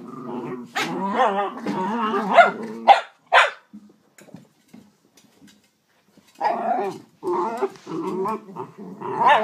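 Jack Russell terriers growling at each other in rough play, with two short sharp barks about three seconds in, a pause of a few seconds, then more growling.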